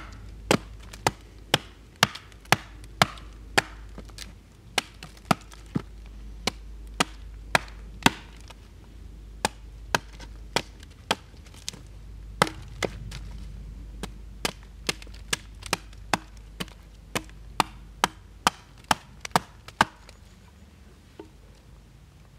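Fiskars hatchet chopping into the end of a wooden stake held upright on a log: sharp, regular blows about two a second with a couple of short pauses, stopping shortly before the end.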